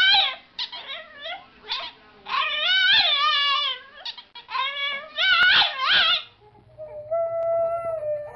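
French bulldog puppy 'talking': a run of short, high yowling and whining cries that rise and fall in pitch. Near the end, a husky holds one long, steady howl.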